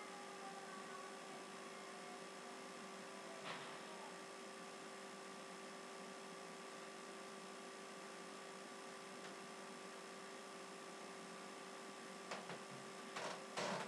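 Steady electrical hum over a faint hiss, with a few brief knocks near the end.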